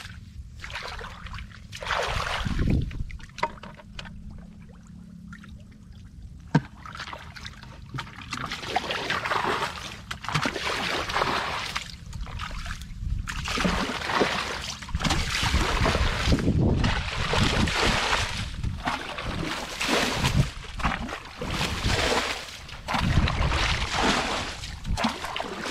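Muddy pond water being bailed out with a plastic bucket: repeated scooping, sloshing and splashing as bucketful after bucketful is thrown out, about one every second or two, sparser in the first several seconds.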